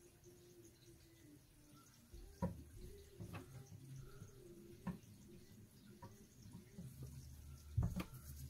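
About five faint, sharp clicks and taps, spaced unevenly, the last two close together near the end. They come from a small metal hand tool working at the solder-filled pin holes of a Honda ECU circuit board during desoldering.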